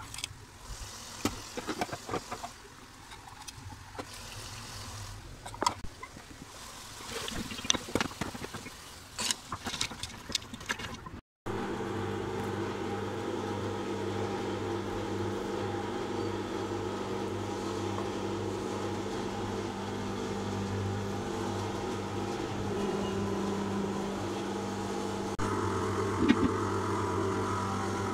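A wooden spoon scraping and tapping in a bowl of dried chili flakes, irregular clicks for about the first eleven seconds. After a sudden cut, a steady mechanical hum takes over, with a few sharp clicks near the end.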